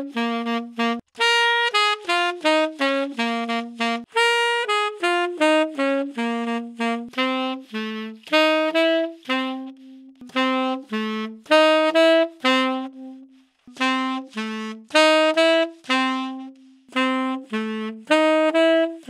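Unaccompanied tenor saxophone playing short phrases of separate notes, the same kind of line coming round again and again. It is heard close up through a dynamic microphone, with the mic changing partway through: first a Shure SM57, then an Audio-Technica ATR2100, then an Electro-Voice RE20.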